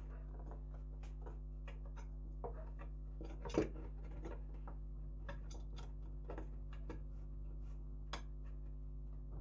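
Rusty steel locking ring on an M1891 Mosin-Nagant socket bayonet being turned and worked by hand, giving scattered small metal clicks and scrapes, with one louder clack about three and a half seconds in. A steady low hum sits underneath.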